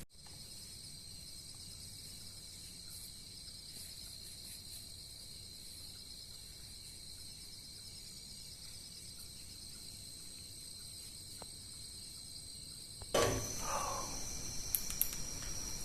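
A steady high chirring of insects, like a cricket chorus. About thirteen seconds in there is a thump, and the chirring switches to a somewhat higher pitch.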